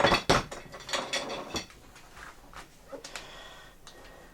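Handling noise as a carbon fibre camera jib arm and its fittings are taken out and unpacked. A few sharp knocks and clatter come in the first second and a half, then quieter rustling and light taps.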